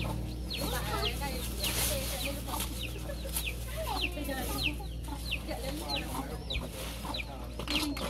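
Chickens: chicks peeping in a steady run of short falling chirps, about two a second, with a hen clucking lower down now and then.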